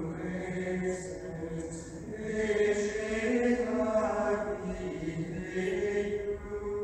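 Choral chant music: voices singing long held notes.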